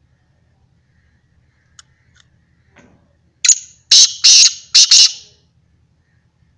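Male black francolin (kala teetar) giving its harsh, grating call: about five loud notes run together over roughly two seconds, starting about three and a half seconds in, after a few faint ticks.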